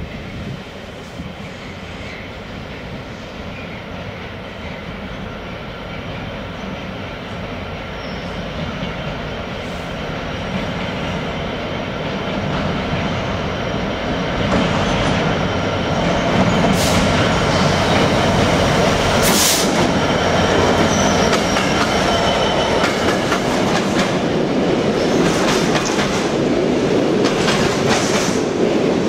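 Freight train approaching and running past: rumble growing steadily louder over the first half, then loaded container wagons rolling by with wheel clatter, faint wheel squeal and a couple of sharp metallic clanks.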